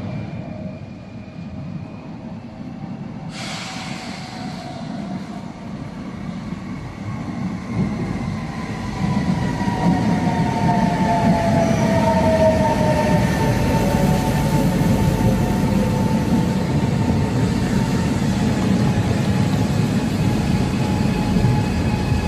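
Trenitalia Jazz ETR 425 electric train pulling into an underground station platform: a rumble of wheels on rail that swells over the first several seconds and then stays loud. A whine slowly drops in pitch as the train slows.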